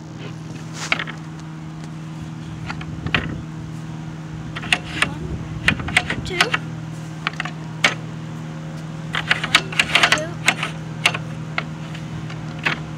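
Hard plastic clicks from a playground game panel: a spinner dial is spun and a knob is pushed along a notched track, clicking in quick runs about a third of the way in and again past two thirds. A steady low hum runs underneath.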